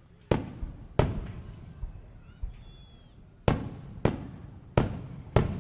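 Fireworks shells bursting: six sharp booms, each trailing off in an echoing rumble, two near the start and then four in quick succession in the second half.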